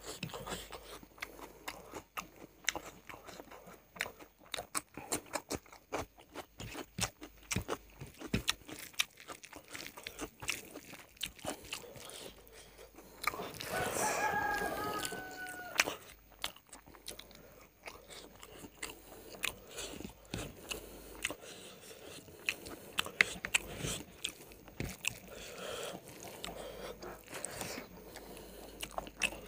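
Close-up eating sounds: wet chewing, smacking and crunching of rice and chicken curry eaten by hand, with many sharp mouth clicks. About halfway through, a rooster crows once for about two seconds, the call falling in pitch at its end.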